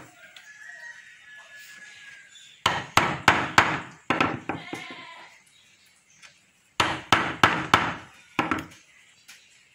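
Hammer striking the capped wooden handle of a wood-carving chisel, driving the blade into a wooden panel along a drawn outline: quick runs of sharp blows, one starting a little under three seconds in and another about seven seconds in.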